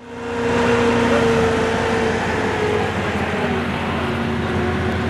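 Engines of wrecked demolition derby minivans running, a steady drone with a held tone that sags slightly in pitch.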